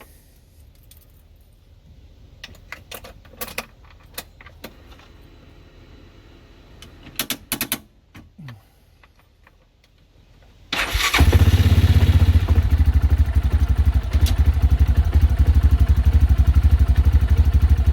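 Keys jingling and a few clicks, then the Cub Cadet Challenger 500 side-by-side's engine cranks briefly and starts about eleven seconds in, running on with a fast, even pulse. It starts with a jumper wire bridging the broken parking-brake switch.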